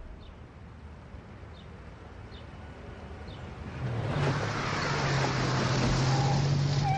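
An SUV drives up: engine hum and tyre noise grow loud about four seconds in and stay steady. Before that there are only a few faint, short high chirps over quiet background.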